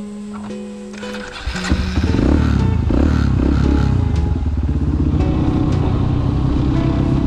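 Motorcycle engine that comes in loudly about a second and a half in, revving up and down as the bike pulls away, then running steadily under way. Guitar music plays before the engine comes in.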